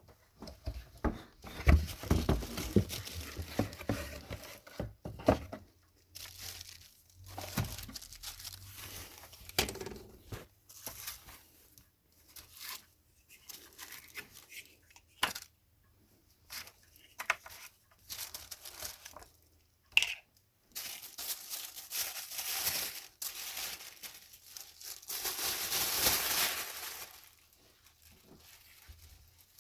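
Packaging being handled by hand: irregular crinkling and tearing, with a few sharp knocks, and a longer, louder stretch of tearing near the end.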